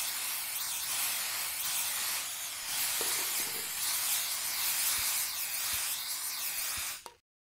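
Aerosol spray-paint cans hissing almost continuously, the hiss swelling and easing, with a few faint knocks in the second half; it stops abruptly near the end.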